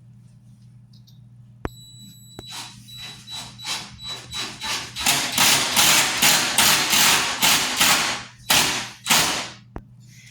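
Hand saw cutting with a steady back-and-forth rhythm of about two strokes a second, the strokes growing louder and longer as the cut goes on, after a single knock at the start.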